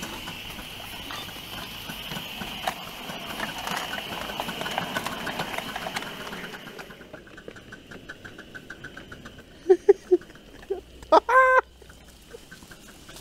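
Small live-steam locomotive on a 5-inch-gauge garden railway running, steam hissing over a steady run of soft beats. About seven seconds in the hiss falls away, leaving soft regular ticking. Near the end come a few short pitched calls and then one louder one.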